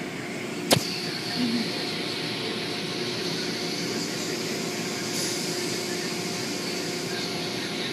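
Steady rushing noise of an automatic car wash running, with a single sharp click about a second in.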